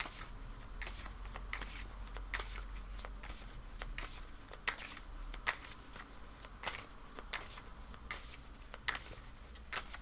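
A tarot deck being shuffled by hand: the cards slap and riffle against each other in an irregular run of short, soft clicks.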